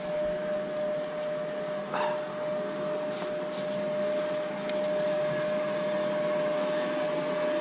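Steady motor whine on one pitch under an even hiss, like a running fan or blower, with a couple of faint clicks about two and five seconds in.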